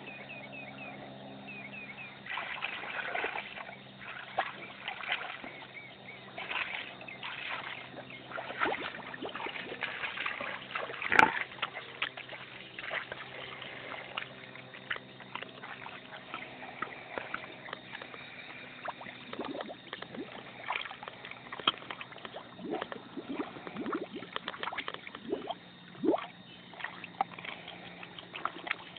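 A pig with its snout in water, sloshing, splashing and gurgling in irregular bouts, with one louder splash about eleven seconds in.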